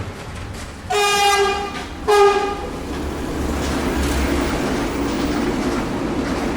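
Train horn sounding two short blasts, one about a second in and a second one just after, followed by the steady rumble of the train running.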